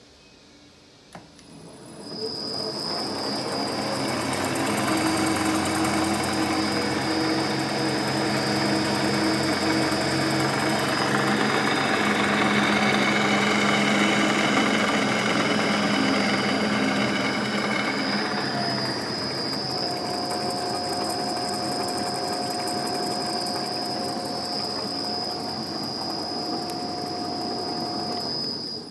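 Enterprise lathe powered through a variable-frequency drive, starting up with a click and a quick rise to a steady run of geared hum and a high whine. Its tones shift about two-thirds of the way through as the drive speed is changed, and it stops suddenly near the end.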